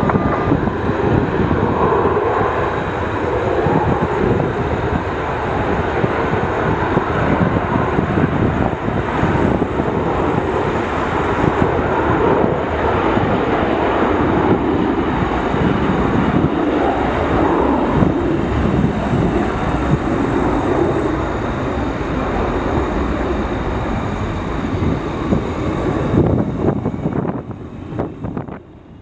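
Jet engines of an Airbus A310-200 twin-engine freighter landing, a steady loud rumble that fades out near the end.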